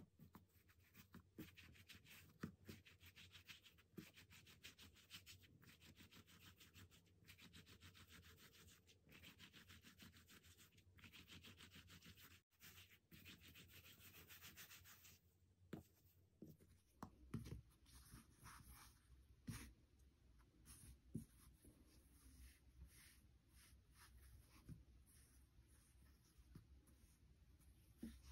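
Hands rolling soft bread dough back and forth on a silicone baking mat: soft, repeated swishing rubs, one after another. After about 16 s the rubbing turns sparser, with a few light taps as the dough rope is handled and twisted.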